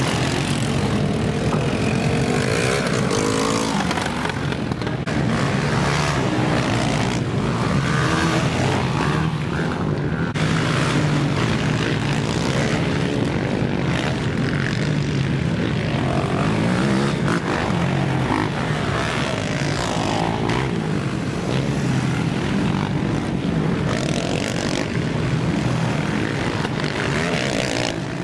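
Racing quad (ATV) engines revving on a dirt motocross track, a continuous engine drone whose pitch keeps rising and falling as the quads accelerate and ease off.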